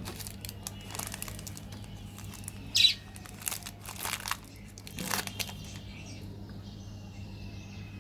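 Plastic candy packaging being handled, rustling and crinkling in short bursts, with one loud sharp crackle just before 3 s; a steady low electrical hum runs underneath.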